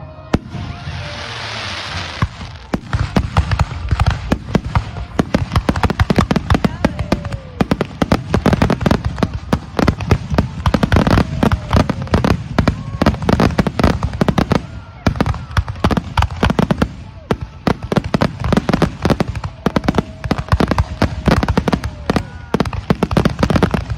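Fireworks display: a dense barrage of bangs, many a second with hardly a gap, after about two seconds of hissing crackle at the start.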